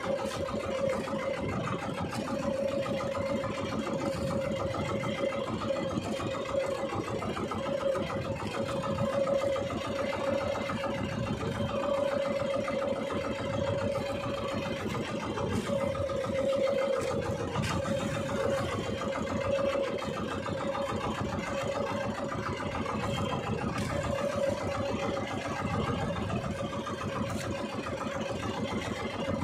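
A small fishing boat's engine idling steadily, a constant hum that does not change.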